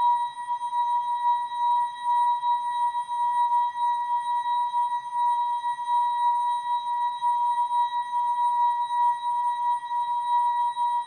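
The ASKfm notification sound effect, slowed and stretched into a long, steady electronic tone with bright overtones, its loudness wavering quickly.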